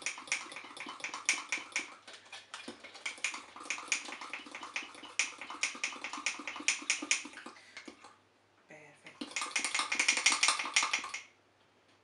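Metal utensil beating cake batter in a ceramic mug: fast clinking and scraping strokes against the mug's sides, mixing out lumps of flour. The strokes pause briefly about two-thirds of the way through, then come back faster and louder for about two seconds before stopping suddenly.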